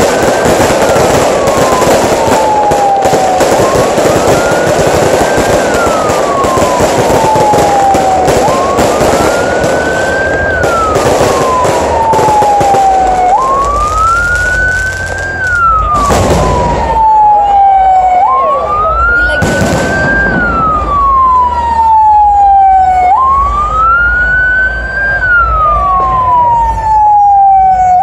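Fire truck siren wailing in a repeating cycle, a quick rise then a long slow fall about every five seconds. Dense fireworks crackle runs under it through the first half, then two loud firework bangs a few seconds apart past the middle.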